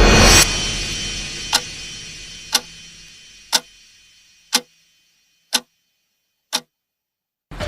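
Clock ticking: six sharp ticks exactly one second apart, in an edited sound effect. The ticks follow a loud swelling sound that peaks at the very start and dies away over about four seconds. The last tick is followed by about a second of silence.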